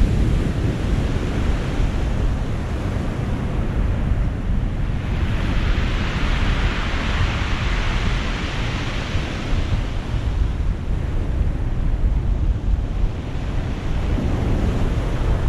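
Sea surf breaking and washing up a pebble beach, with the loudest wash swelling and fading in the middle. Wind buffets the microphone with a steady low rumble.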